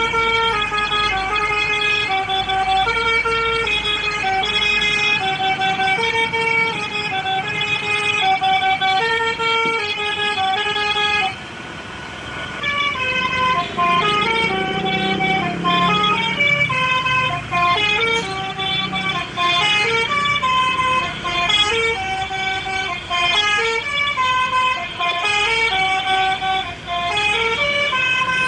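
A tune played on a multi-tone telolet air horn, its notes stepping up and down in a repeating melody, breaking off briefly near the middle. A vehicle engine rumbles past for a few seconds after the break.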